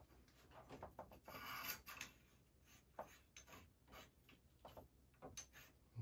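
Faint scraping and light clicks of a copper pipe and its brass fittings being handled and worked into place by hand, with a short scrape about one and a half seconds in.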